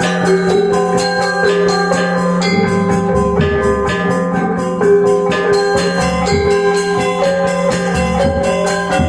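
Balinese gamelan gong ensemble playing a tabuh pisan piece: bronze metallophones struck in dense, rapid figures over sustained ringing tones and a steady low hum.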